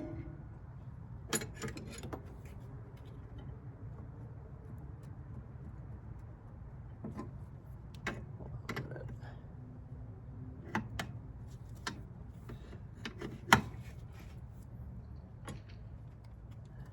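Irregular metallic clicks and clinks of a wrench working at a rusted clutch hydraulic line fitting, one sharper knock about three-quarters through, over a steady low hum.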